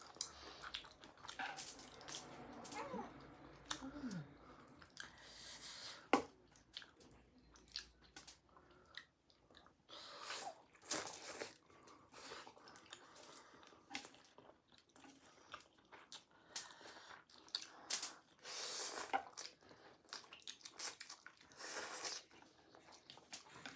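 Mouth noises of someone eating sausage chow mein close to the microphone: chewing, with wet smacks and clicks and louder bursts every few seconds.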